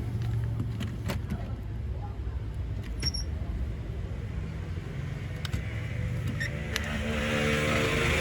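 Low, steady engine-like hum with a few light clicks, and a hissing noise that builds near the end.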